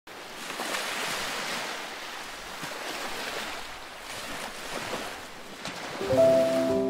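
Ocean waves washing onto a beach, the surf noise swelling and easing in slow surges. Near the end, music with long held notes comes in over it, louder than the surf.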